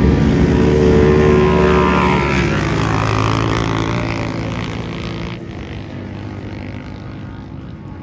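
Engines of a side-by-side UTV and an ATV at full throttle racing past. The pitch drops about two and a half seconds in as they go by, and the sound then fades away into the distance.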